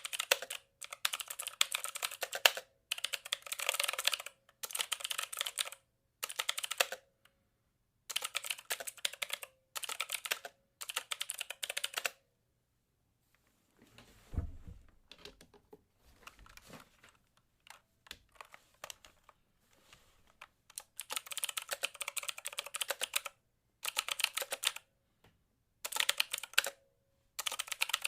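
Typing on a computer keyboard: rapid key clicks in bursts of a second or two with short pauses between. About halfway through the typing turns fainter and sparser, starting with a low thud, then picks back up near the end.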